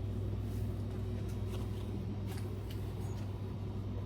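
Steady low background hum of a store, with a few faint clicks over it.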